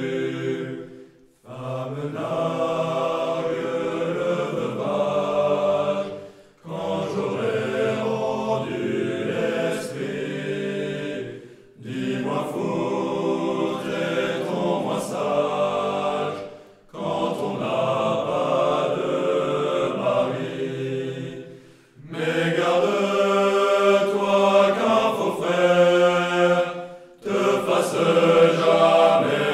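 Choir singing a French military song in phrases of about five seconds, each followed by a brief pause.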